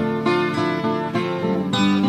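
Instrumental passage of a French worship song: acoustic guitar strumming chords, with no singing.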